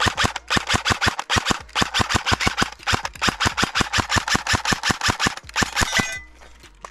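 Specna Arms J71 Core airsoft electric AK-74 firing fast on semi-auto: a quick, slightly uneven string of sharp shots, about six a second, that stops after about six seconds. This is the fast semi-auto shooting that shakes the gun's loosely fitting dust cover off.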